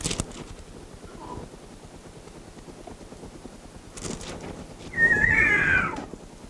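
Pages of a Bible rustling as they are turned, at the start and again about four seconds in. Near the end a loud wavering squeal about a second long, falling in pitch.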